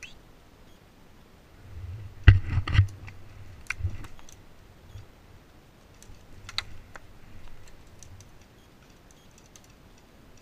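Scattered sharp clicks and knocks: a quick cluster of them with a dull thud about two seconds in, then single ones near four and six and a half seconds.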